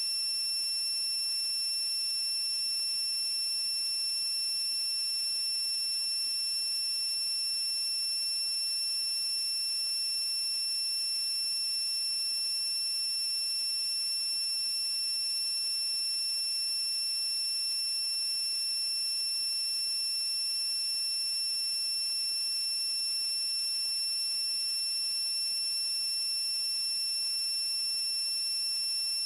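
A steady, high-pitched electronic tone with higher overtones over a hiss, unchanging throughout.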